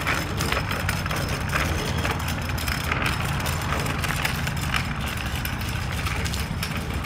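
Footsteps walking on a concrete sidewalk, roughly two steps a second, over a steady low rumble.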